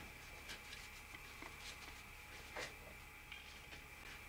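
Faint soft clicks and light rubbing of hands wiping excess glue off a model airplane's rudder hinges, the strongest click about two and a half seconds in, over a steady faint high whine and low hum.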